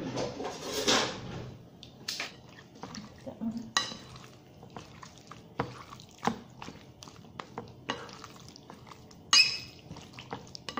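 Metal fork clinking and scraping against a ceramic bowl as raw chicken pieces are tossed in seasoning, irregular knocks and clicks with the loudest one near the end.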